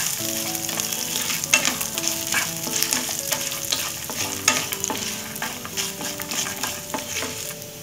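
Peanuts, cumin, tempering seeds and chopped ginger sizzling in hot ghee in a nonstick pan while a spatula stirs them, with frequent sharp scrapes and clicks of the spatula against the pan.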